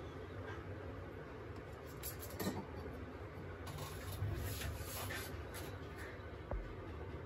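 Steady low hum and room noise, with a few faint clicks and scrapes.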